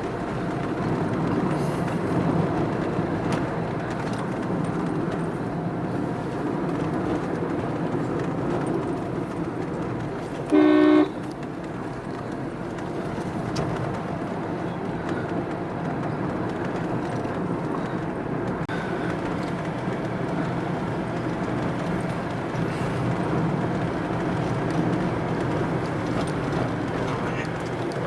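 Steady engine and road noise of a car driving along, heard from inside the car. A single short vehicle horn honk about ten seconds in is the loudest sound.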